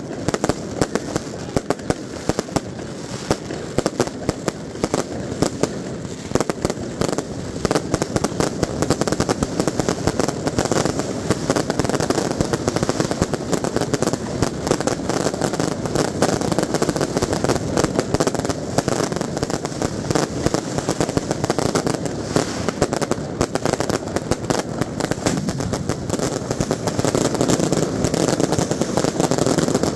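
Fireworks and firecrackers going off in a dense, continuous barrage of bangs and crackling, many reports a second with no let-up.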